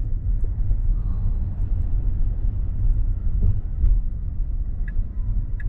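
Steady low rumble of road and tyre noise inside the cabin of a Tesla Model X driving slowly.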